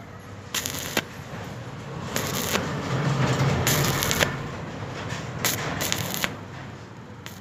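Stick welding arc: a flux-coated electrode burning against thin steel, crackling and sizzling steadily, with several short, sharper spells of crackle.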